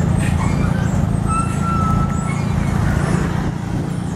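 Diesel engines of a line of dump trucks running with a steady low rumble.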